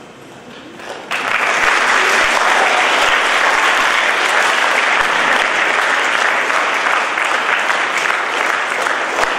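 Audience applauding: the clapping starts suddenly about a second in and carries on steadily.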